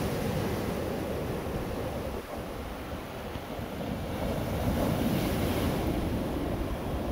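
Black Sea surf: small waves breaking and washing up a sandy beach, a steady wash that swells louder about two-thirds of the way through.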